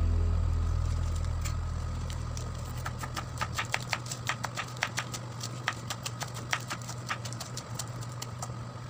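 Kitchen knife chopping lettuce on a wooden cutting board: a quick, uneven run of sharp knocks, several a second.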